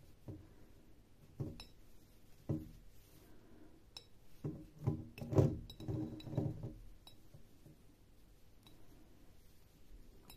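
Fingers and cotton macramé cord knocking and brushing against a glass jar while knots are tied: scattered soft taps and glassy clinks, with a denser cluster of knocks and brief ringing around the middle.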